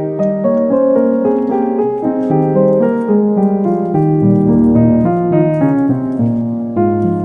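Piano music: a steady run of short notes, with lower bass notes joining about four seconds in.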